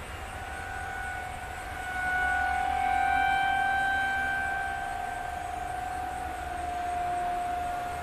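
Outdoor tornado warning siren sounding a steady tone for a siren test, its loudness slowly swelling and fading, loudest about three seconds in and again near the end.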